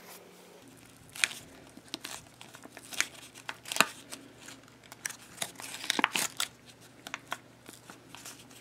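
Pleated paper cupcake wrapper crinkling in the fingers as it is tugged at and the soft foam squishy inside is squeezed, in scattered sharp crackles with short gaps between them.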